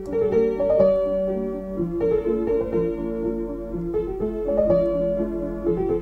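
Solo piano playing slowly: notes and chords struck about once a second and held so that they ring into one another.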